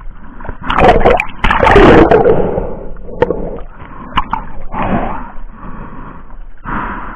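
Seawater sloshing and splashing against a camera held at the waterline, in uneven surges with sharp knocks of water on the housing. It is loudest in the first couple of seconds.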